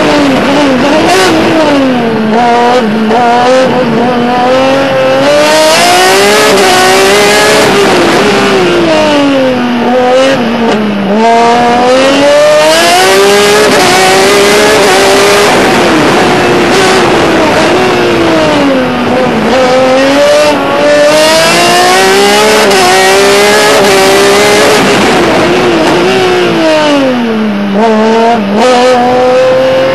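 Racing car engine heard loud from the open cockpit of a prototype. It climbs through the gears in short steps, then drops back as the car slows for a bend, over and over.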